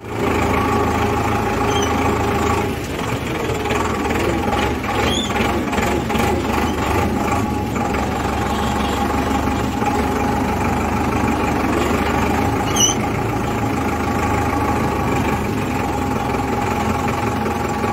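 Sonalika 750 tractor's diesel engine running steadily under way, heard from the driver's seat.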